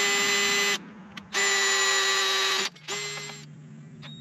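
Cordless drill boring a hole through a mower's painted metal panel, its motor running in three bursts with short pauses between: the first stops about three-quarters of a second in, the second runs for just over a second, the third is a brief blip near the end.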